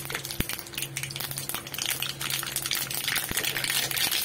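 Mustard seeds and dried red chillies sizzling in hot mustard oil in a kadhai, with many small pops and crackles over a steady hiss.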